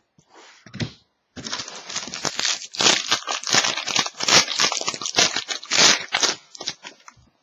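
A trading card pack's wrapper being torn open and crumpled: dense crinkling that starts about a second and a half in and dies away near the end, after a few light rustles.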